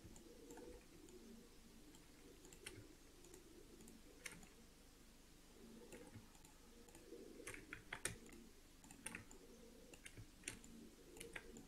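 Faint, scattered clicks of a computer mouse and keyboard over near silence.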